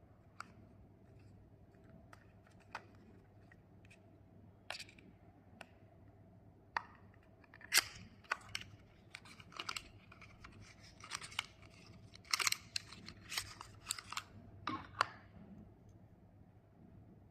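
Small paperboard cosmetics box being handled and opened: a few sharp taps and clicks, then a busier run of short scrapes, crinkles and clicks as the end flap is pulled open and the stick slides out of the box.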